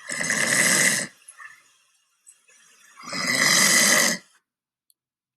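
Two long snores, about three seconds apart, each lasting roughly a second: the snoring of the sleeping dog in the story.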